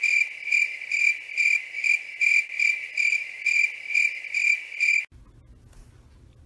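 Cricket chirping sound effect: an even, high chirp repeating about twice a second, cutting off abruptly about five seconds in. After that only faint room tone.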